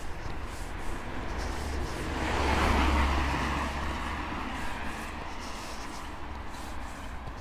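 A car passing by on the street: its tyre and engine noise swells to a peak about three seconds in, then fades as it drives away.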